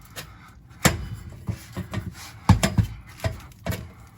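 Hooker BlackHeart steel exhaust pipe clanking and knocking against the header outlet as it is slid on and worked up into place. The knocks come irregularly, the loudest about two and a half seconds in.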